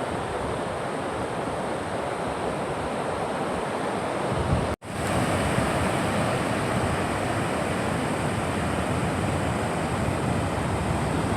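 Steady rushing water noise, unbroken except for a brief dropout about five seconds in.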